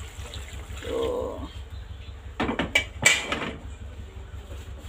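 Metal clatter of a frying pan and the utensils in it being set down on a gas stove: a quick run of knocks and clinks, loudest about three seconds in. A brief pitched call sounds about a second in.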